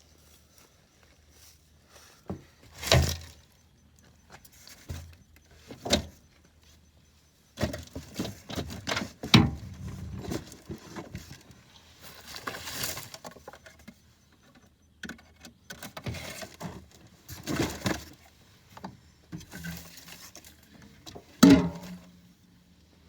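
Irregular knocks, cracks and rustling of cut wood and branches being handled; no chainsaw is running.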